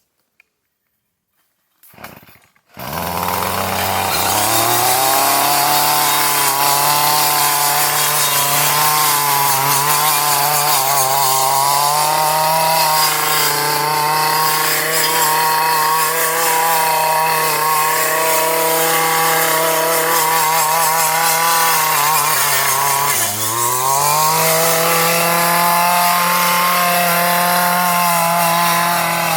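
Gas string trimmer fitted with a four-sided brush blade: its small engine comes on about three seconds in and runs at high speed, its pitch wavering a little. About 23 seconds in the engine speed drops sharply and then picks back up.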